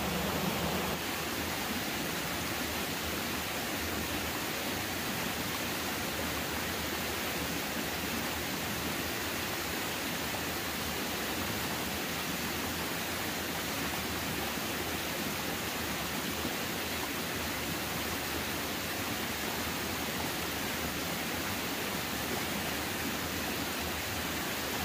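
Steady, even rushing noise with no distinct events standing out.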